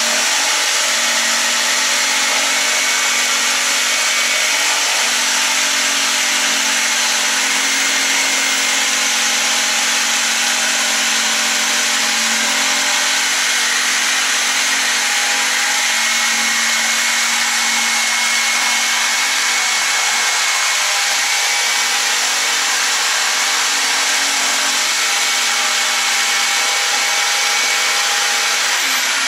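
Electric jigsaw running steadily as it cuts an opening through thick wooden log-siding boards. Near the end the motor is switched off and winds down with a falling whine.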